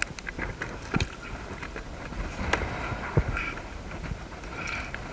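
Wind buffeting the microphone as a steady low rumble, with scattered sharp knocks and clicks from the stranded kayak-trimaran; the loudest comes about three seconds in.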